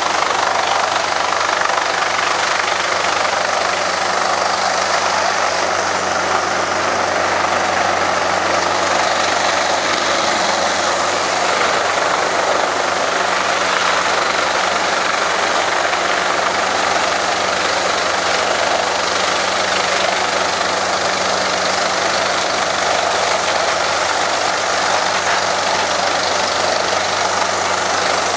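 Planalto P 180 MST mobile wood chipper running steadily under load while chipping logs: a constant engine hum under a dense, even rush of noise, with no let-up.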